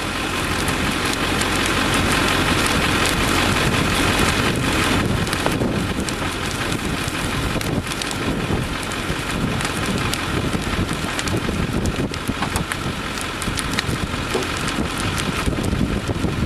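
Heavy rain pelting the storm-chase vehicle, a dense steady patter of drops striking its roof and windows.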